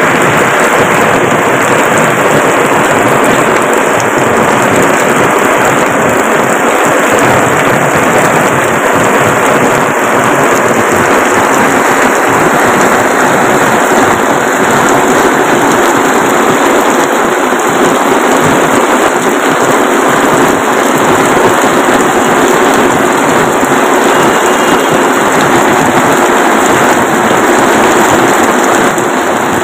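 Heavy rain pouring onto a flooded road: a loud, steady, even hiss of downpour splashing into standing water.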